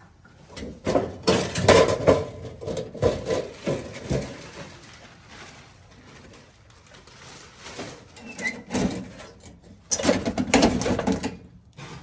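Thin galvanized sheet-metal vent boot rattling, scraping and flexing as it is handled and worked down into a floor duct opening: a spell of clattering starting about a second in, quieter handling, then a second spell near the end.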